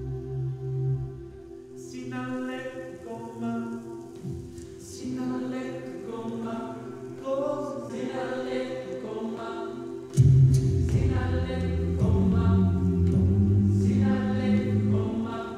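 Group a cappella circle singing: several voices hold steady low drone notes while improvised melodic lines move above them. About ten seconds in, a louder, deeper voice through a microphone comes in over the group.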